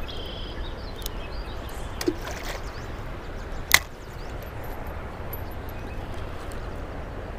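River water running steadily, with a few sharp clicks over it, the loudest a little past the middle.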